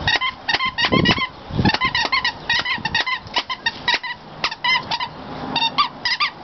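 A golden retriever chewing a squeaky dog toy, making many short, sharp squeaks in quick, irregular succession.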